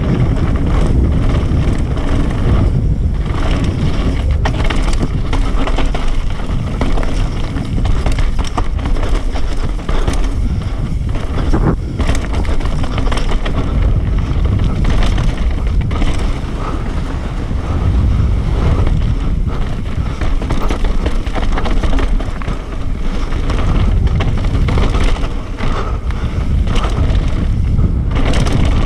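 Wind rushing over an action-camera microphone on a downhill mountain bike at speed, with the tyres rolling over dirt and gravel and the bike rattling through a string of knocks over the bumps.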